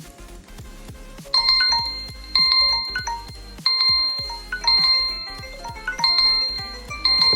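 Smartphone alarm or ringtone melody: bright bell-like chime notes repeating about once a second over a steady low beat.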